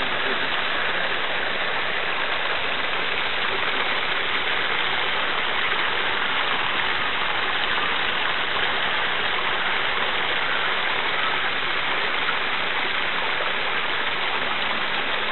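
A steady, even rushing noise with no distinct tone or rhythm.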